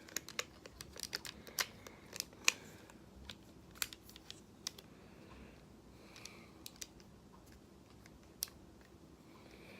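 Plastic parts of a Studio Series Voyager Starscream Transformers figure clicking and snapping as it is handled and folded into jet mode: irregular light clicks, many in the first few seconds and fewer after.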